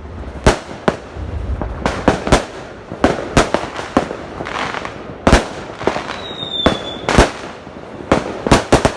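Fireworks going off: an irregular run of sharp bangs, about fifteen over nine seconds, sometimes two or three in quick succession.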